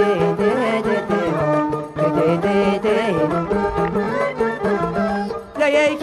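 Traditional Tashelhit (Amazigh) folk music playing, an instrumental passage between sung verses with a melodic line over steady held notes.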